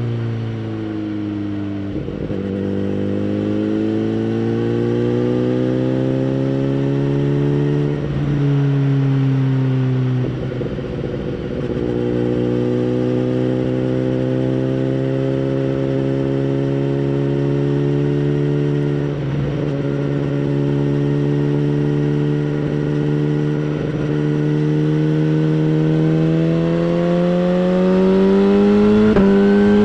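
2011 BMW S1000RR inline-four with a Bodis aftermarket exhaust, heard onboard while riding through the gears. The engine note rises steadily under throttle and drops back at each of several gear changes. Near the end it climbs higher as the bike accelerates harder.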